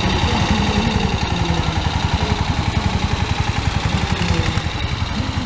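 Vintage tractor engines running at low speed as a line of old tractors passes close by, a steady, rapid, even pulsing beat.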